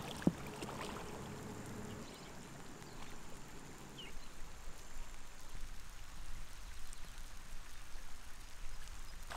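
Quiet pond-side ambience: a faint wash of water with a low wind rumble on the microphone that grows about halfway through, and a single sharp click just after the start.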